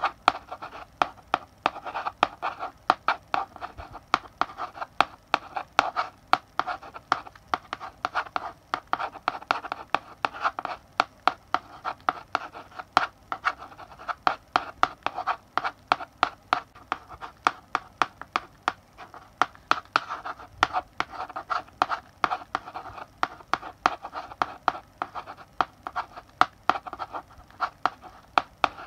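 Chalk writing on a blackboard: a quick, uneven run of sharp taps and short scratching strokes as letters are written.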